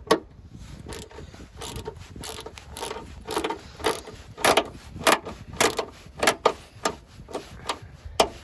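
Hand ratchet clicking in short, irregular strokes, roughly two a second, as a headlight fastener is worked loose.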